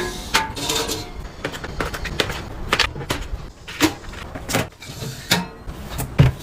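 Irregular sharp clicks, taps and knocks of containers and packaging being handled and set down one after another, with some rustling early on.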